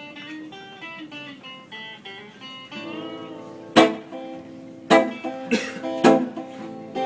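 Live band playing a tango-style instrumental intro on guitars: a run of single picked notes, then about four seconds in the band comes in with loud accented chords, struck three times roughly a second apart.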